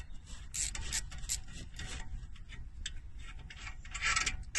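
Ratchet and 13mm socket working the brake caliper bolts loose: a series of irregular rasping strokes of metal on metal, with a longer, louder stroke about four seconds in.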